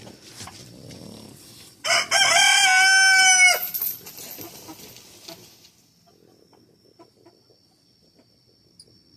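A rooster crows once, one long crow of about a second and a half that drops in pitch at its end, with softer clucking from poultry around it.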